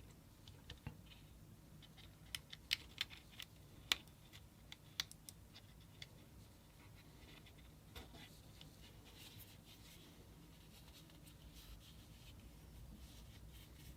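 Hands handling a small card phone and its packaging: scattered light clicks and taps, several sharper ones in the first five seconds, then faint scratching and rustling.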